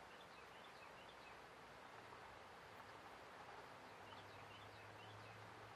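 Faint steady hiss of falling rain, with a bird calling twice, each time a quick run of short chirps, near the start and again about four seconds in. A low hum comes in about two seconds in.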